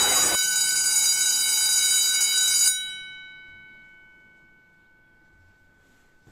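Electric school bell ringing loudly, cutting off about two and a half seconds in and then dying away.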